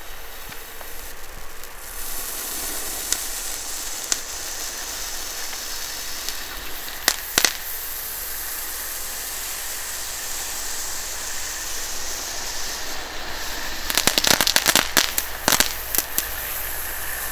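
Small category 1 firework fountain hissing steadily as it sprays, starting about two seconds in, with a couple of sharp cracks midway and a rapid run of crackling pops near the end.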